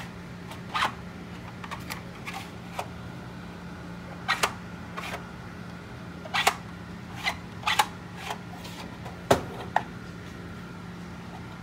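Irregular clicks and knocks of 3D-printed plastic cowl parts being handled and fitted together, over a steady low hum.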